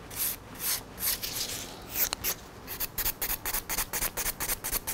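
Hand nail file rasping in short strokes across an acrylic nail, shaping it. The strokes come about two a second at first, then quicken to a rapid back-and-forth rasp from about halfway.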